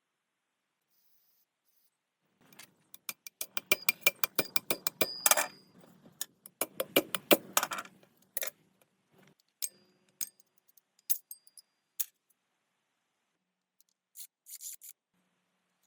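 Small metal parts clinking and rattling against each other as they are handled. A quick run of many sharp clinks starts about two and a half seconds in, then thins to scattered single clinks, with a short cluster near the end.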